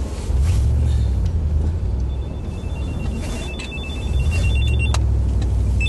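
A mobile phone ringing with a pulsing two-tone electronic ring from about two seconds in until near the end, over the steady low rumble of the vehicle cab while driving.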